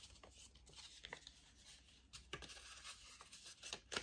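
Near silence with faint rustling and small clicks of a paper card and envelope being handled, a few slightly louder touches near the end.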